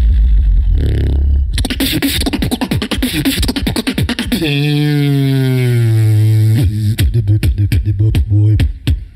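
Human beatboxing into a handheld microphone. It opens with a deep held bass tone, then a fast run of sharp clicks, then a held sung tone that slides slightly down, then a steady beat of percussive hits.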